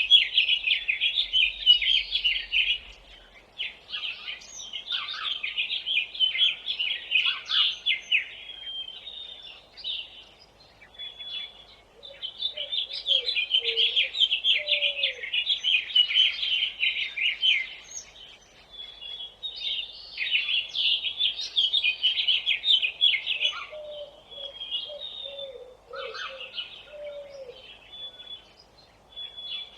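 Songbirds chirping in long runs of rapid, high notes that last a few seconds each with short pauses between, and a lower warbling call heard twice in the second half.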